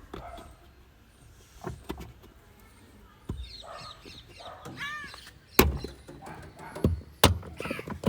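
A crow cawing a few times around the middle, with several loud sharp knocks in the second half.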